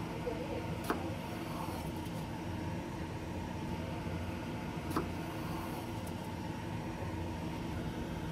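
Chef's knife slicing pickled radish on a wooden cutting board, with sharp knocks of the blade on the board about a second in and about five seconds in, over a steady low mechanical hum.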